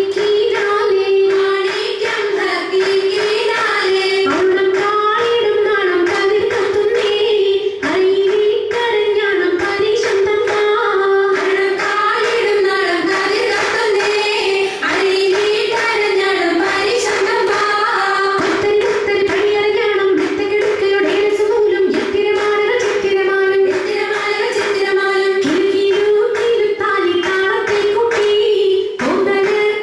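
Oppana performance: voices singing a Mappila folk song in unison, with rhythmic hand claps throughout and a steady held note underneath.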